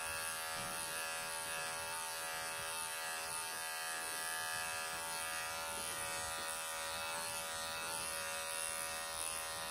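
Wahl professional electric pet clippers running with a steady, even buzz while shaving through a Persian cat's matted coat.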